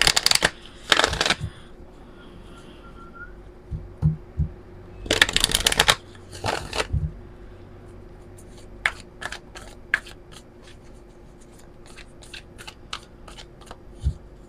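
A deck of oracle cards being shuffled by hand. It comes in quick runs of rapid card flicks near the start and again about five seconds in, then slower, separate card clicks through the second half.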